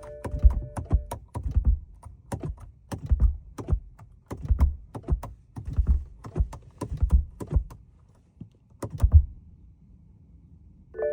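Irregular clicking and dull thunks, roughly one or two a second, from a BMW E90 that won't start. The clicking stops about two seconds before the end.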